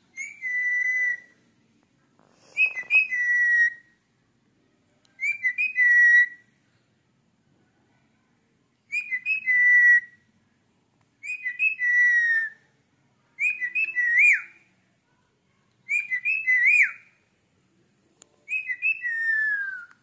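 Male Indian ringneck parakeet whistling a repeated phrase eight times, about one a second-and-a-half to two seconds apart: each phrase is a couple of quick chirps followed by a held, high whistle, the last few ending in a falling slide.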